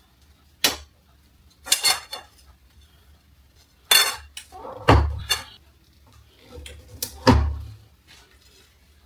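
Metal parts of a clothes drying rack clanking and clicking as they are handled and fitted together: about six separate knocks, the two loudest about halfway through and near the end with a dull thud under them.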